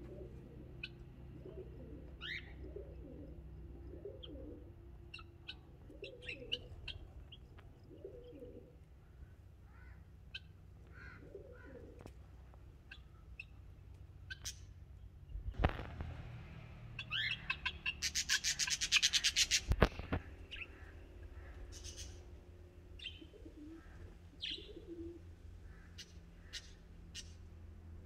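Pigeons cooing, with scattered chirps of small birds. A little past the middle, a loud, rapid run of sharp notes lasts about two seconds, framed by two sharp knocks.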